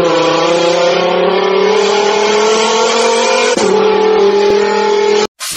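Sports car engine accelerating hard, its pitch climbing slowly, dropping at a gear change about three and a half seconds in, then climbing again before cutting off suddenly near the end.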